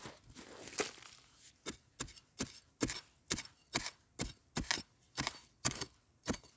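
A hand scraping loose soil, then a metal digging blade chopping into dry, sandy soil again and again, about two strikes a second. This is digging down along a wild yam root.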